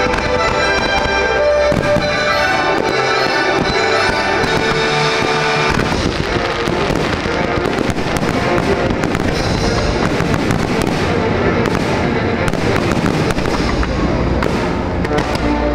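A fireworks display, its shells going off and crackling over the show's music soundtrack. From about six seconds in, dense crackling takes over from the music.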